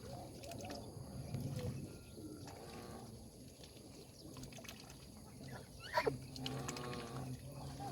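Domestic geese calling, with one sharp, louder call about six seconds in followed by a longer call.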